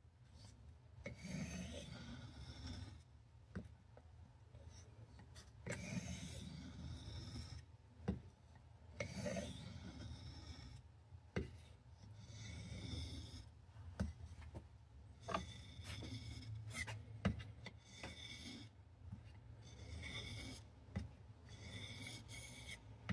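The blade of a Cattaraugus 225 Quartermaster knife is drawn in slow, gritty strokes across a sharpening stone, with short pauses between strokes and a few sharp clicks.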